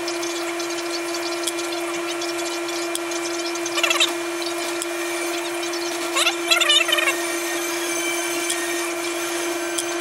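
Short scrapes of a hobby knife stripping the insulation off thin hookup wire, once about four seconds in and again a little before seven seconds, over a steady electrical hum.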